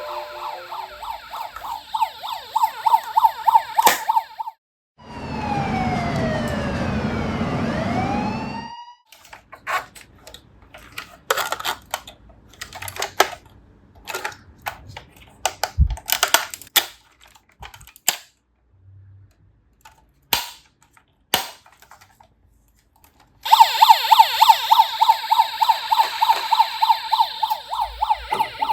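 A toy police car's electronic siren beeps fast around one pitch, about three pulses a second, then stops. A whoosh with falling and rising glides follows, then a long stretch of scattered sharp clicks and knocks with quiet gaps. The pulsing siren comes back loud near the end.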